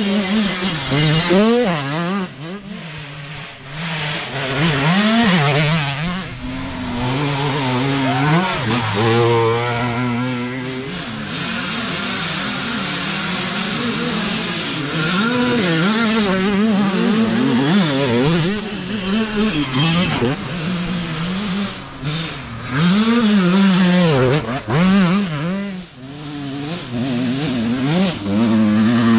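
Youth dirt bike engines revving on a woods trail, their pitch rising and falling over and over as the riders get on and off the throttle.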